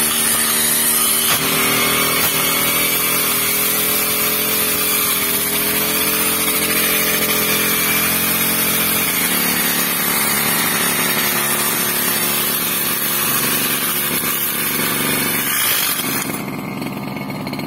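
TASCO 328E two-stroke brush cutter engine running at high speed while its spinning trimmer head cuts grass. About a second before the end the throttle is let off and the engine drops to a lower, quieter note.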